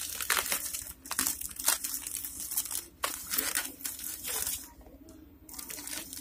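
Plastic courier mailer being torn open and crinkled by hand: irregular ripping and rustling of plastic, easing into a short lull about five seconds in before the rustling picks up again.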